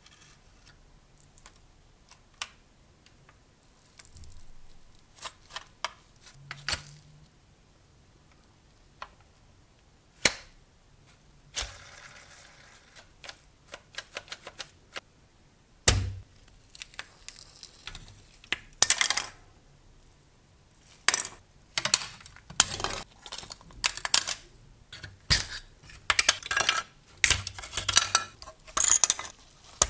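A thin metal spatula prying and scraping at a rusted die-cast model car body. Scattered clicks and taps at first, then from about halfway a dense run of clicking and scraping as rust is worked off the metal.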